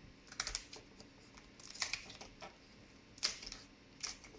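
Kitchen scissors snipping through a raw lobster's shell: a handful of short, sharp crunching snips at irregular intervals.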